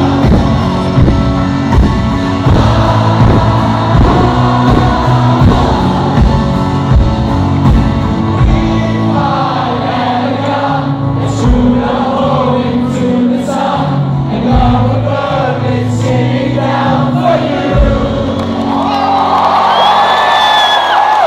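Live rock band with amplified vocals playing the close of a song; the drums stop about eighteen seconds in, leaving crowd noise and a short whistle near the end.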